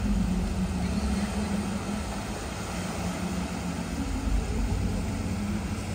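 Rough sea surging and washing across a flooded waterfront, a steady rumble of moving water with a low drone running underneath.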